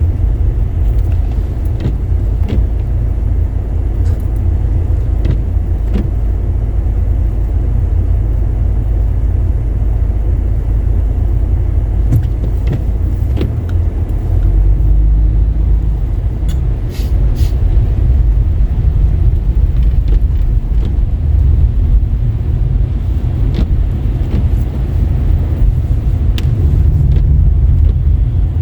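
A car driving: a steady low rumble of the engine and road from inside the moving car, with a few faint scattered clicks.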